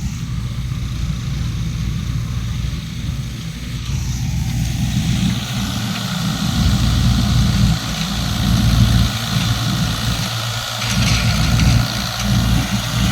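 Engine of harvesting machinery running steadily, with a hiss of machine noise that grows from about four seconds in.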